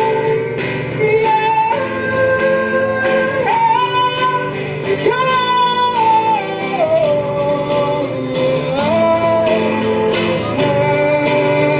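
Live music: a female voice holding long notes that slide from one pitch to the next, over strummed acoustic guitar.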